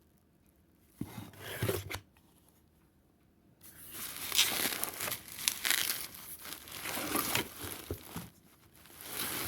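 Packaging being torn open and crinkled by hand while a box is unpacked: a short rustle about a second in, then steady tearing and crinkling from about three and a half seconds, pausing briefly near the end.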